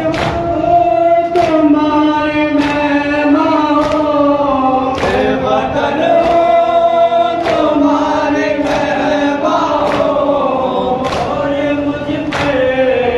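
A group of mourners chants a noha, a Shia lament for Bibi Zainab, in unison, led by a reciter on a microphone. A sharp unison slap of matam chest-beating lands about every second and a quarter, keeping the beat of the chant.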